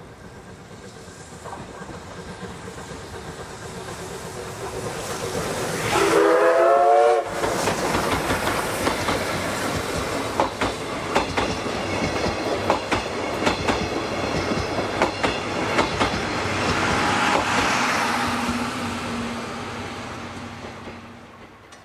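Steam locomotive C58 363 approaching and passing, growing louder, and sounding its steam whistle once for about a second, about six seconds in, the loudest moment. Its passenger coaches then roll past with a steady clickety-clack of wheels over rail joints, fading away near the end.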